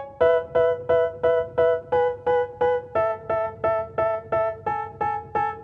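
Background music: a piano-like keyboard plays the same chord over and over, about three strikes a second, shifting to a new chord every second or so. This is the instrumental intro of a rap track.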